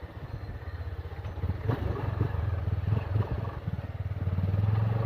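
Motorcycle engine running, with a few clattering knocks in the middle; the engine gets louder about four seconds in.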